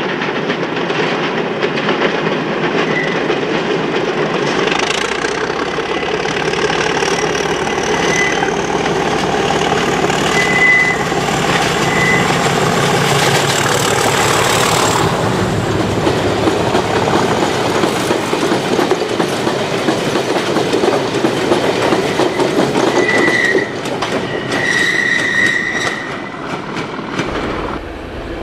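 Freight train hauled by a British Rail Class 37 diesel locomotive passing close by on a curve. The locomotive goes past about halfway through, then a rake of empty alumina wagons rolls by with a steady clickety-clack over the rail joints and short high squeals from the wheels.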